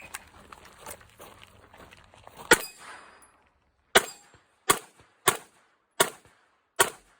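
Six 9mm pistol shots from a Glock 17 Gen 5 during a timed Steel Challenge string. The first shot is the loudest and rings on briefly. The other five follow at a steady pace, a little under a second apart.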